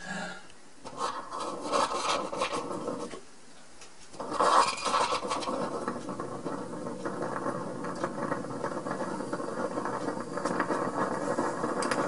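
Methanol flame in an empty Sterno can, forced by air blown through a thin tube: a steady rushing of breath and flame that stops briefly a little past three seconds, then starts again louder and keeps on.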